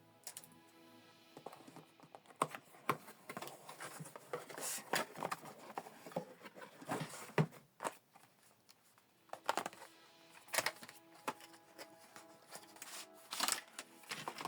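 Speaker box and packaging being opened and handled: irregular clicks, taps and rustles of cardboard and plastic, with faint background music.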